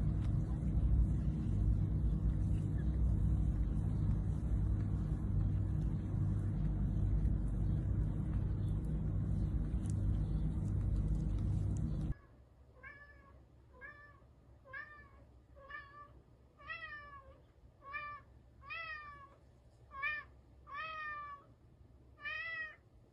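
A loud, low noise with a steady hum for about the first twelve seconds, then it cuts off and a cat meows over and over, about once a second, each meow a short rise and fall in pitch.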